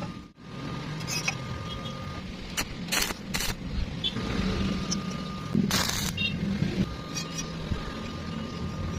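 Stick welding: a steady hum with scattered crackling clicks, broken by short bursts of hiss about three seconds in and a longer one near the middle.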